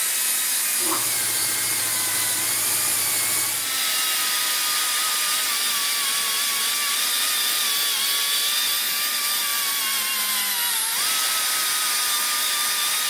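Die grinder spinning a green Scotch-Brite roll-lock pad against a small engine's sump cover, scrubbing off old gasket material: a steady high whine over an abrasive hiss. The whine's pitch sags gradually as the pad is pressed in, then springs back up about eleven seconds in.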